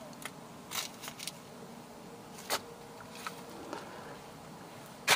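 A handful of short plastic clicks and light rustling from a gloved hand handling the xenon headlight ballast and reaching around the headlight housing, the loudest click just before the end.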